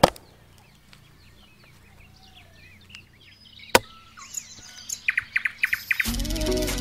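Axe blade chopping into a log: two sharp strikes about four seconds apart, with birds chirping between them.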